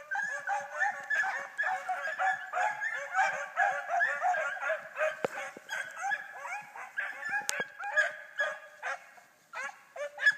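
A pack of hunting dogs baying on a trail: many voices calling over one another in a steady chorus that thins out near the end.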